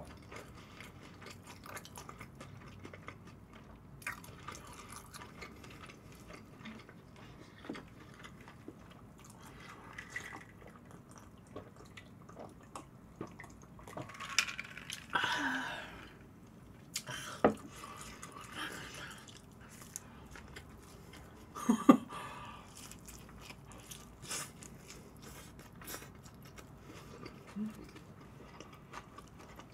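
Close-miked eating sounds: soft chewing and small wet mouth clicks. Around the middle come a few swallows from a glass of iced drink, and a little later a single sharp knock.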